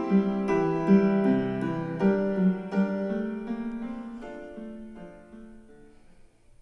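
Piano music played through Logitech Z407 2.1 speakers and picked up by a microphone, with struck notes a few times a second. The music fades out steadily and is almost gone near the end.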